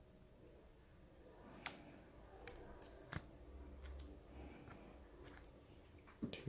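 Faint, scattered sharp clicks and taps, about five over six seconds, from a tablet's ribbon-cable connector and small parts being handled as the cable is unclipped and refitted.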